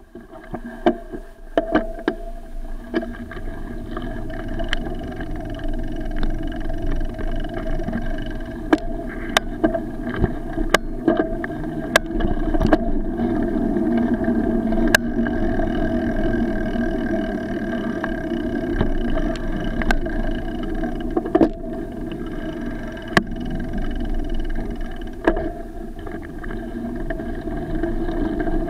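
Bicycle riding over pavement, heard through an action camera: a steady rumble of tyre and wind noise, broken by frequent sharp knocks as the bike goes over bumps.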